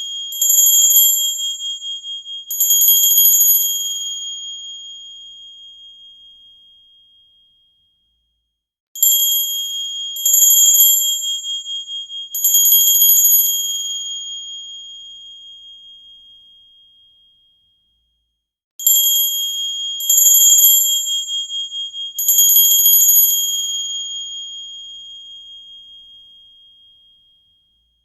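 Small Christmas bell shaken in three quick bursts of jingling, then left to ring and fade out over several seconds. The pattern comes round three times, each round starting about every ten seconds, with a brief silence between rounds.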